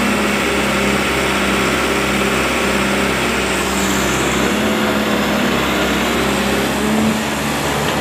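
Wheeled excavator's diesel engine running steadily under hydraulic load as the arm and bucket work.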